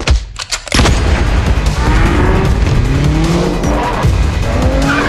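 Action film trailer soundtrack: a short drop near the start, then loud, dense music with many sharp impact hits and several sliding pitch sweeps.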